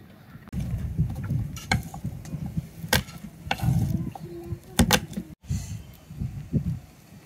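Irregular clicks and knocks over low, uneven thudding, with a momentary dropout about five seconds in.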